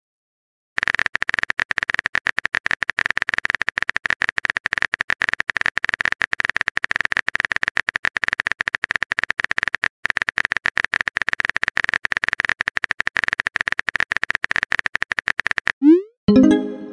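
Texting-app keyboard typing sound effect: a fast, dense stream of key clicks that starts after a brief silence. Near the end the typing stops and a short rising swoosh and a pitched tone play as the message is sent.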